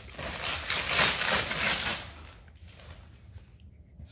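Shiny gift wrapping paper being ripped and torn off a cardboard box, a loud rustling rip for about the first two seconds, then quieter rustling.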